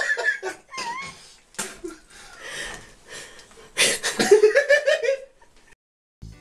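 A person laughing hard, at the start and again in a second burst about four seconds in, with a short cat meow about a second in.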